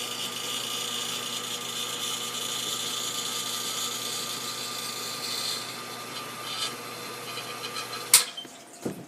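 Everbilt sump pump's motor running with a steady hum, winding down and getting a little quieter, then cutting off about eight seconds in with a sharp knock, followed by a lighter knock.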